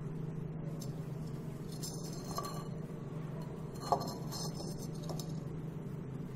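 Glazed ceramic planters clinking lightly as they are handled, with two short ringing taps, the sharpest about four seconds in, over a steady low hum.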